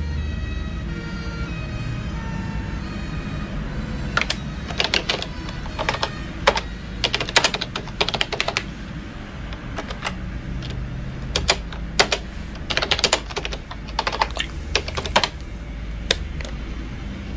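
Typing on a computer keyboard, in irregular bursts of rapid keystrokes that start about four seconds in and stop near the end, over a low steady hum.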